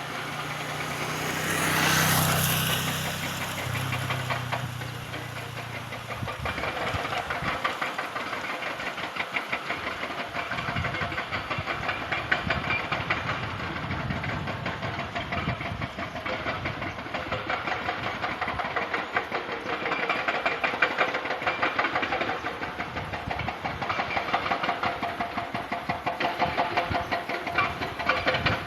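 Excavator's diesel engine running, with a loud hiss about two seconds in. From about six seconds in the engine settles into a fast, even clatter.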